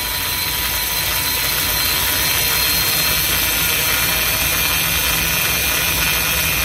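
Electric parking brake motors on a 2020 Mercedes GLE 350's rear calipers running steadily as workshop mode retracts the pistons for a brake pad change.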